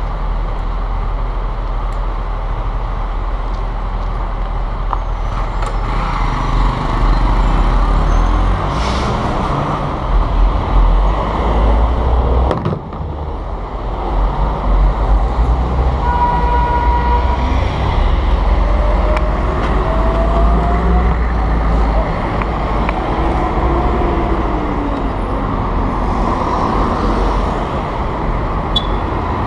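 Busy city street traffic: cars, a box truck and a city bus running and passing, with a steady low engine rumble. A few short whines from the vehicles come about halfway through.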